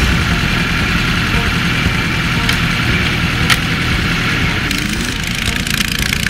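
Porsche 908's air-cooled three-litre flat-eight race engine idling steadily.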